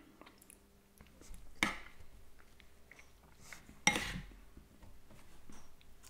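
A person slurping soup from a spoon: two loud, short slurps a little over two seconds apart, with faint clinks of the spoon against the bowl between them.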